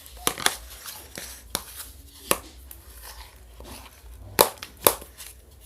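Thick homemade slime being stirred hard in a pot, with about six sharp, irregular clacks and pops, the loudest two late on.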